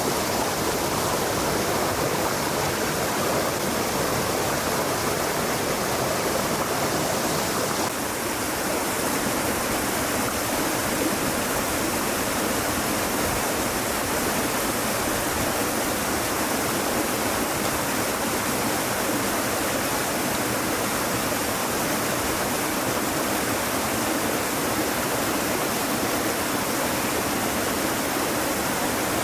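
Flowing stream water rushing steadily, with a slight change in its tone about eight seconds in.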